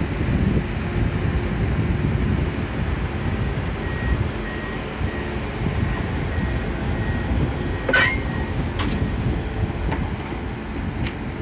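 Renfe Tren Hotel passenger coaches rolling past a station platform: a steady low rumble of wheels on the rails. About eight seconds in comes a sharp clank with a brief high squeak.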